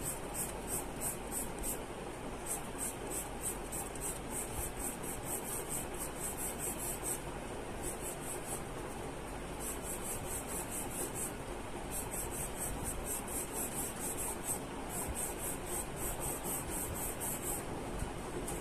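Charcoal pencil scratching on drawing paper in quick back-and-forth shading strokes, about three to four a second, in runs with short pauses as the pencil is lifted.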